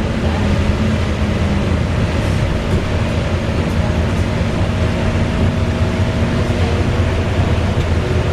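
Wright Gemini 2 VDL DB300 double-decker bus under way, heard from inside: a loud, steady engine and driveline drone with a whirring whine held over it.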